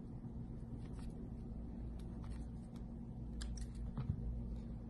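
Small clicks and taps from handling a plastic flip-key remote shell and a screwdriver, a few scattered through, the sharpest about four seconds in, over a steady low hum.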